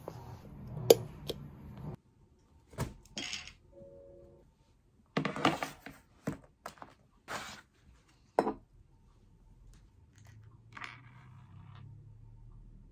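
Small objects being handled and set down on a wooden desk: a sharp click about a second in, then a string of knocks, taps and short sliding rustles through the middle. A brief steady tone sounds a little before them.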